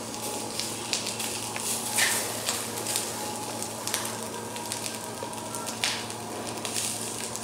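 Peeled gambas (prawns) sizzling and crackling on a very hot ridged grill pan, a continuous hiss scattered with small pops as they sear.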